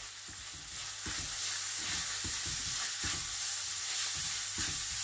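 Beef mince sizzling in a frying pan as a spatula stirs tomato puree and fajita spice through it. A steady sizzle, louder from about a second in, runs under irregular soft scrapes and knocks of the spatula against the pan.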